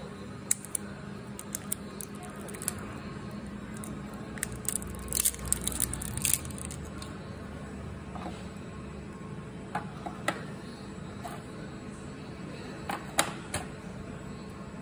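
Scattered plastic clicks and taps from handling a Dell KM117 keyboard as batteries are fitted into its battery compartment, busiest about five to six seconds in, with two sharp clicks about thirteen seconds in. A steady low hum runs underneath.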